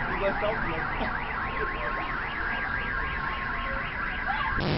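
Car alarm wailing in a fast rising-and-falling warble, about four sweeps a second, over a steady background rumble. A short burst of hiss comes at the very end.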